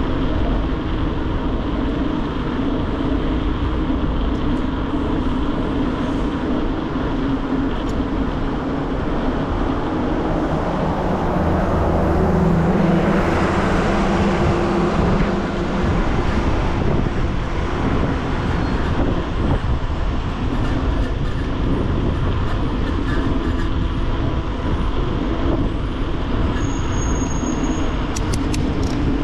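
Steady rush of wind and road noise from a mountain bike being ridden on the road, picked up by a bike-mounted action camera. It swells louder for a few seconds around the middle.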